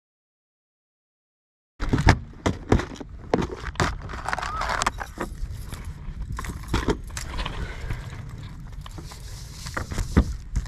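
Dead silence for nearly two seconds, then knocks, clatters and rattles of a red rope and gear being handled on a fibreglass boat deck, over a steady low rumble of wind on the microphone.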